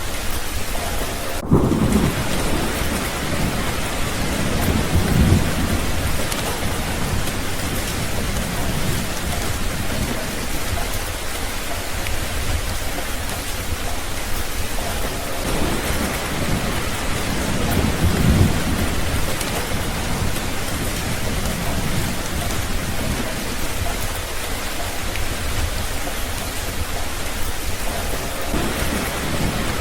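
Steady heavy rain hissing, with low rumbles of thunder that swell up several times, the strongest about a second and a half in, at about 18 seconds and near the end.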